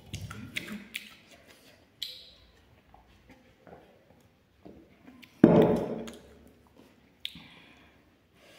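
Small clicks, taps and mouth sounds of a person eating and drinking from a metal cup, with one louder sudden sound about five and a half seconds in that fades over a second.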